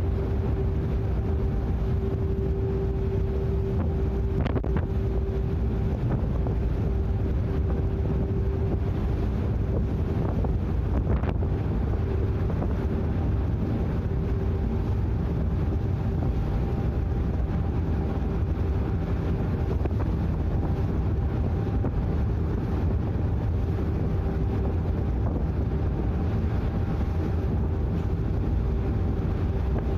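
Icebreaker sightseeing ship's engine running with a steady low rumble and a constant hum, with wind buffeting the microphone. Two faint clicks, about four and eleven seconds in.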